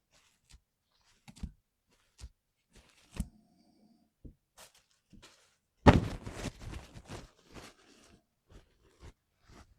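Mechanical keyboard parts being handled: scattered small clicks and taps, then a sharp loud clatter about six seconds in that rattles on for a second or so before trailing into a few light ticks.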